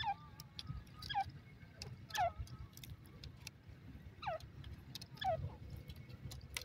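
Grey francolin calling: five short whistled notes, each sliding steeply down in pitch, about one a second with a longer gap in the middle. Scattered sharp clicks and a low rumble lie underneath.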